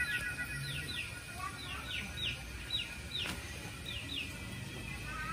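A bird chirping over and over: short, high, downward-sliding chirps, mostly in pairs, about every half second. There is one sharp click a little past three seconds in.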